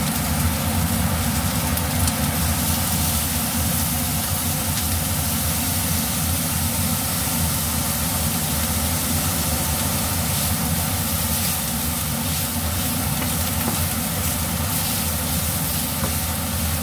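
Chopped chicken and bell pepper sizzling steadily as they fry in a hot pan, turned over with a wooden spoon, over a steady low hum. The chicken is being crisped in its own fat, with no oil added.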